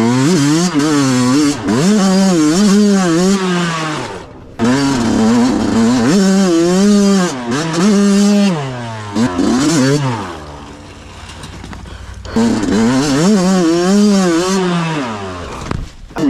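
Small engine of an off-road vehicle revving hard, its pitch wavering quickly up and down as the throttle is worked over rough ground. It drops off briefly about four seconds in, falls to a lower, quieter run for a couple of seconds past the middle, then revs up again.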